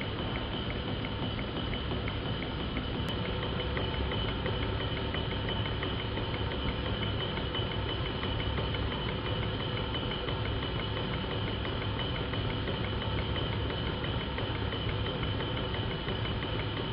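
Model steam engines, the S50 horizontal mill engine among them, running steadily on compressed air in a test run of the new steam piping, with a rapid, even ticking.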